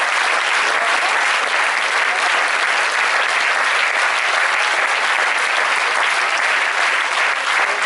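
Concert audience applauding, a dense steady clapping.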